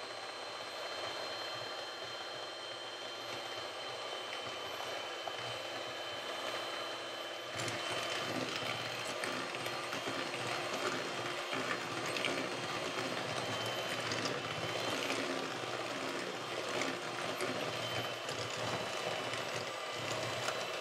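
Bosch electric hand mixer running on low speed, its beaters whisking an egg-and-sugar batter in a bowl. The sound steps up louder about seven and a half seconds in.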